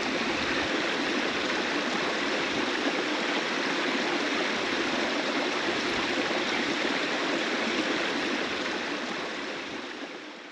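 A stream running steadily, fading out over the last couple of seconds.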